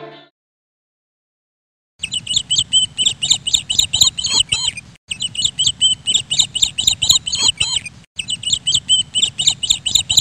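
Bird chirping in quick, rapid calls, starting about two seconds in and breaking off abruptly twice, as a looped recording does.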